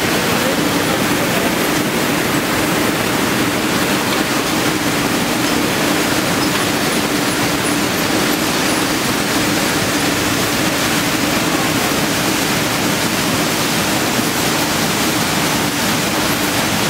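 Stainless-steel ginger washing and processing machine with a motor-driven inclined conveyor running: a steady rushing noise with a steady hum underneath.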